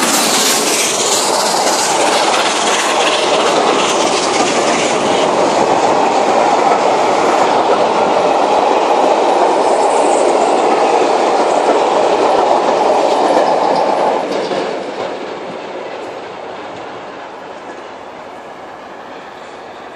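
LNER A4 steam locomotive 4464 Bittern passes close by, followed by its coaches, wheels running on the rails in a loud, steady rush. About fourteen seconds in, the noise drops away sharply as the last coach passes, and the train fades into the distance.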